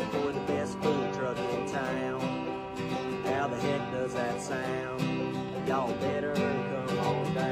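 Acoustic guitar strummed and picked, playing a tune in a country style.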